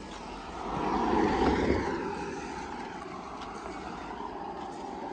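A motor vehicle passing close by: its engine and road noise swell about a second in and then ease off into steady traffic hum.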